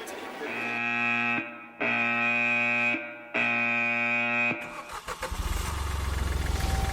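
Three long, steady electronic alarm tones of the same pitch, each about a second long with short gaps between them. About five seconds in, a vehicle engine starts and runs with a low rumble.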